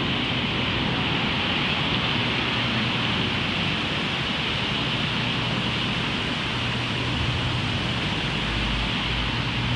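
Steady urban background noise: a constant, even hiss of distant traffic with a low hum underneath that grows a little stronger over the last few seconds.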